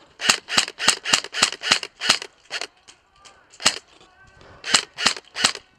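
Airsoft guns firing in rapid single shots, about three sharp cracks a second for two seconds or so, then a few more scattered shots.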